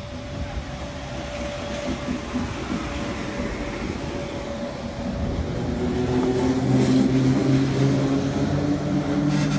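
Vintage red single-deck electric train set F1 passing close by at low speed, its wheels rumbling on the rails. From about six seconds in, a steady hum of several tones comes in and grows louder.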